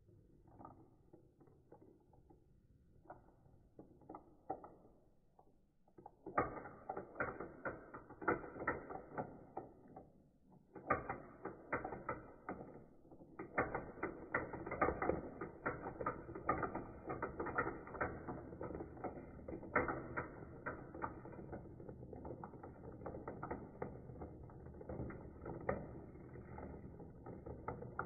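Small plastic balls rolling and clattering through a plastic marble run's spiral funnels and tubes. There are faint scattered clicks at first. From about six seconds in comes dense, rapid clicking and rattling, broken by two short pauses.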